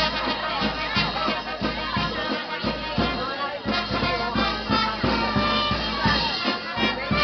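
Brass band music: horns playing a tune over a steady drumbeat.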